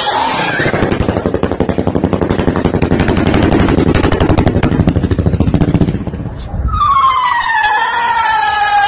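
A firework rocket launching and climbing, with a loud, rapid buzzing crackle for about six seconds. Near the end a drawn-out tone with several overtones starts and slowly falls in pitch.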